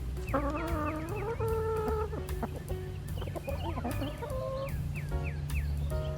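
Chickens calling. A long, wavering drawn-out call starts about a third of a second in and lasts nearly two seconds, and a second wavering call comes a little past the middle. Background music with a steady beat plays underneath.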